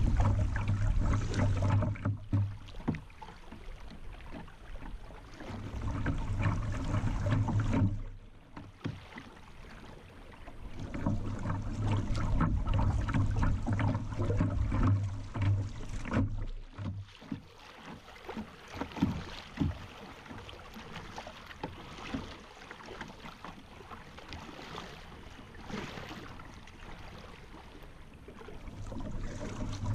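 Moving river water rippling and splashing around a kayak, heard close to the water surface, with a low rumble that comes and goes in stretches.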